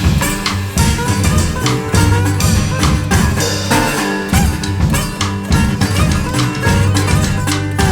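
Blues band playing an instrumental break: guitar over double bass and a drum kit keeping a steady beat.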